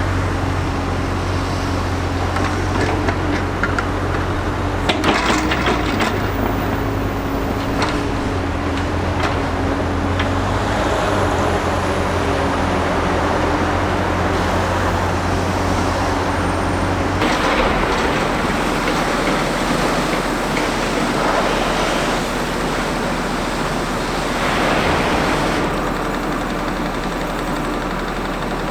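Diesel engine of a Liebherr R 960 high-reach demolition excavator running steadily under a wash of noise, with a few short knocks and clatter; its low drone drops away about two-thirds of the way through.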